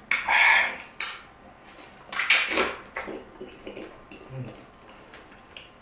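Close-up mukbang eating sounds of ripe red dragon fruit: two loud wet bites or slurps, one right at the start and one about two seconds in, with scattered small clicks and smacks between them.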